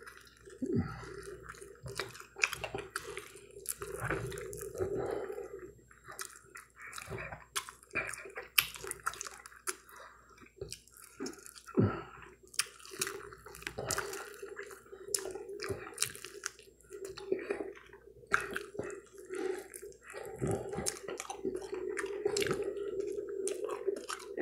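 Close-up eating of a fried chicken wing: chewing and biting, with many short wet clicks and smacks throughout.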